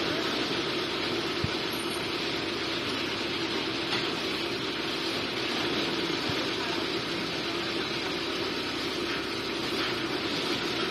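Engine of a Kaishan KG420 crawler down-the-hole drill rig running steadily, a constant low hum under an even mechanical noise, while its hydraulic controls are worked.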